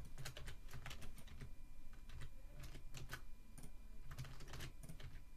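Computer keyboard keys and mouse buttons clicking in irregular clusters of quick taps, over a low steady hum.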